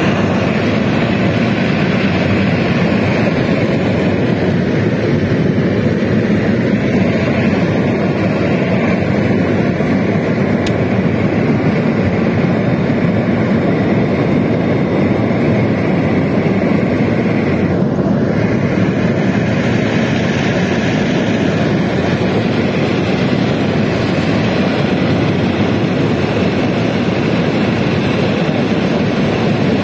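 Steady loud in-flight cabin noise of a Beriev Be-200 amphibious jet: its twin turbofan engines running and air rushing past, heard from inside the aircraft.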